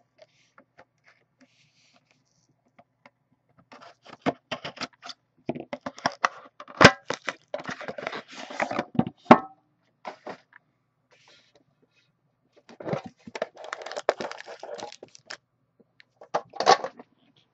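Plastic shrink-wrap being torn and crinkled off a sealed trading-card box, with cardboard and packaging being handled. It comes in bursts of crackling starting a few seconds in, with a couple of sharp snaps.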